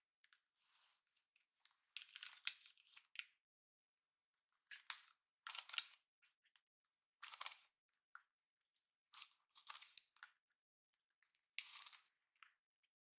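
Long hair rustling as it is handled and gathered during hair styling: a series of short, soft swishing strokes with quiet pauses between them.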